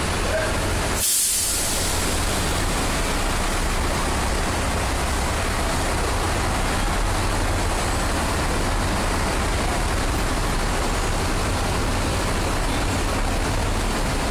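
Steady low rumble of engines and machinery on a car ferry's vehicle deck, with a short hiss about a second in.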